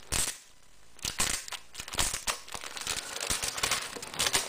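Clear plastic packaging crinkling and crackling as it is opened and handled. There is a short burst right at the start and a brief lull, then irregular crinkling goes on from about a second in.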